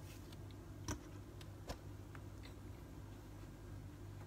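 Two sharp clicks about a second and nearly two seconds in, then a few faint ticks, over a low steady hum: a small metal diecast toy car being handled and set down on a hard surface.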